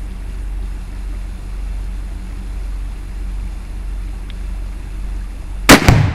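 A steady low rumble, then near the end two very loud bangs a fraction of a second apart: a rifle shot and the Tannerite exploding target detonating, with a rumbling tail.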